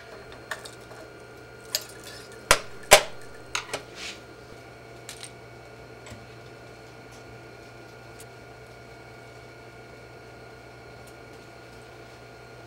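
Clinks and knocks of metal parts and hand tools being handled on a workbench, a handful of sharp strikes in the first few seconds, the loudest about three seconds in. After that only a steady faint hum remains.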